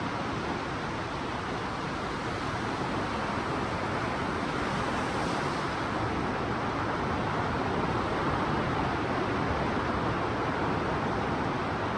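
Steady wash of surf breaking on the beach, mixed with wind. The hiss swells slightly about five seconds in.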